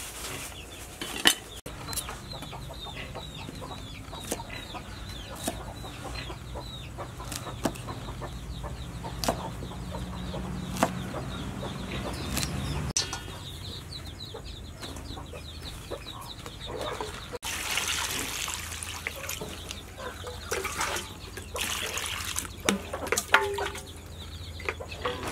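Chickens clucking in the background, with the sharp clicks of a knife chopping long beans on a wooden board. In the last part, water splashes and runs into a steel bowl of vegetables.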